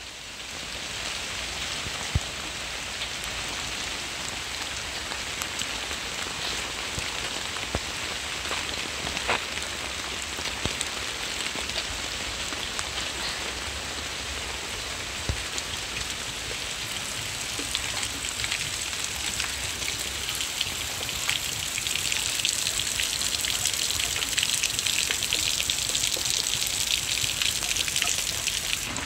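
Heavy rain pouring down on leaves and a brick-paver patio: a steady hiss with scattered drop splats. The patter grows louder and sharper over the last several seconds.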